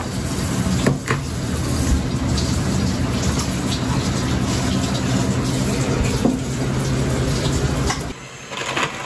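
A steady rushing noise with a low hum underneath, broken by a few light knocks, cuts off abruptly about eight seconds in.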